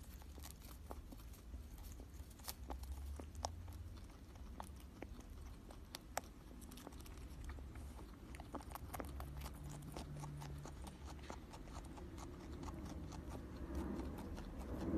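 Guinea pig making small, irregular crackling clicks, coming more often about halfway through, over a low steady hum.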